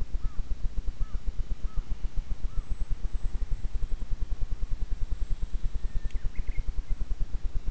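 A low, fast-pulsing rumble on the microphone, about ten pulses a second, is the loudest sound. Over it a bird gives short arched calls, one roughly every three-quarters of a second through the first two and a half seconds, and a few higher chirps come about six seconds in.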